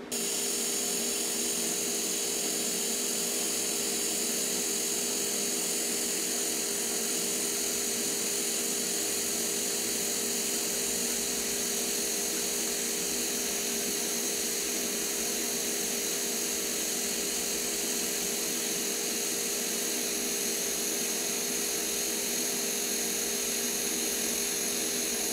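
TIG welding arc burning steadily as it lays a fillet weld joining 2 mm steel to 5 mm plate at about 100 amps. It is a steady electrical hum with a high whine over a hiss, starting abruptly as the arc is struck.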